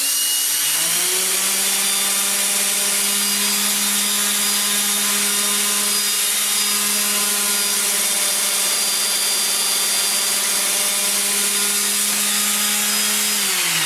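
A cordless drill spinning a wooden disc on a bolt while a running Makita random orbital sander is held against its edge, sanding it round: a steady motor hum over the grinding rasp of sandpaper on wood. The motors come up to speed in the first second and wind down together near the end, their pitch falling.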